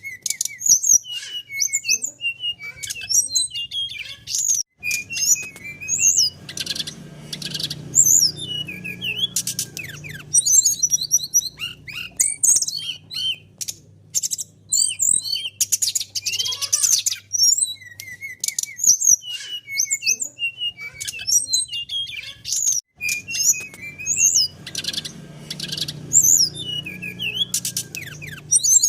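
Brown-chested jungle flycatcher (sikatan rimba dada coklat) singing a rapid, varied string of high chirps, trills and whistled glides.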